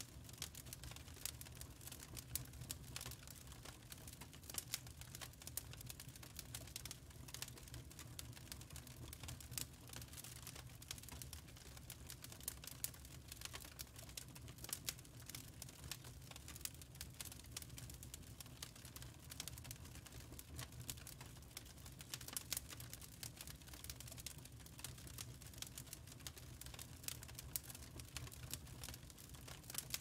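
Wood fire crackling softly in a fireplace: a steady stream of small, irregular pops and snaps.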